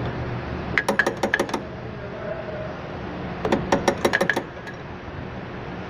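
Two quick runs of sharp metallic clicks, each about a second long, one near the start and one about halfway through. The source is a wrench working the brake line flare nut on the master cylinder, which is being cracked open to bleed air from the line.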